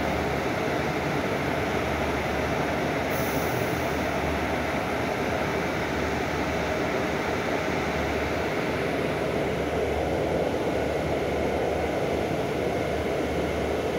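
Mercedes-Benz O500U city bus heard from inside the passenger cabin: the engine running steadily with an even low hum and cabin rattle while the bus stands still, with a brief faint hiss about three seconds in.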